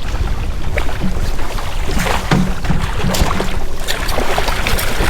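Fishing boat's engine running steadily at trolling speed, a constant low rumble with wind and water noise over it and a few light knocks.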